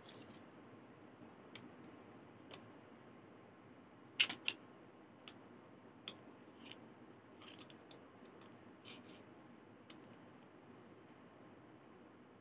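Stainless steel folding camping multi-tool being handled, its tools clicking as they are pulled out and snapped into place: scattered light clicks, with a sharp cluster of three about four seconds in.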